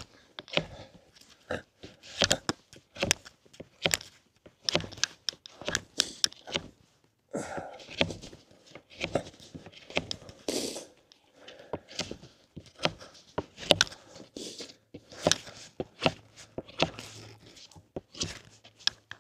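A knife whittling a point on a wooden stick: short, irregular scraping cuts as shavings come off, about one or two strokes a second.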